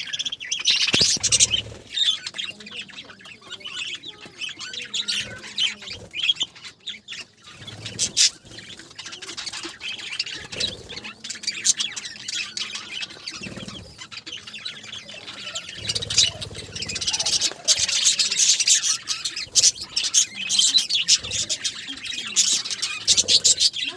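Budgerigars chattering and squawking, with rapid high chirps in dense stretches, busiest near the start and over the last third.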